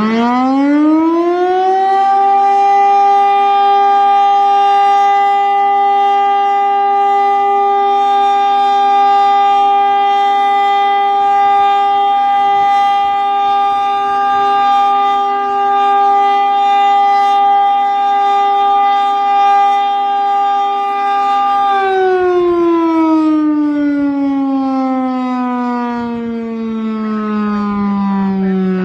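Federal Signal STL-10 electromechanical warning siren winding up to full pitch in the first couple of seconds, holding a loud, steady tone for about twenty seconds, then beginning to wind down with slowly falling pitch near the end.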